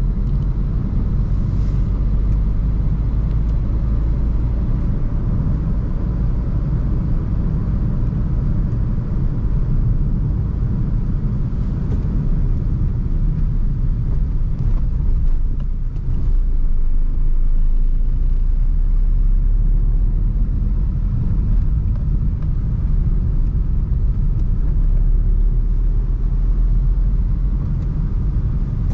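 Maruti Suzuki Swift Dzire car on the move: a steady low rumble of engine and road noise.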